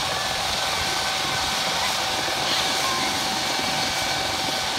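Turbine engines of London's Air Ambulance helicopter, a twin-engine Eurocopter EC135, running on the ground: a steady high whine over an even rushing noise.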